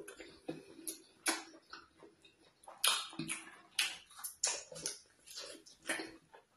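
Close-miked wet eating sounds: irregular lip smacks, slurps and chewing clicks, a few a second, as ogbono (draw) soup and pounded yam are eaten by hand.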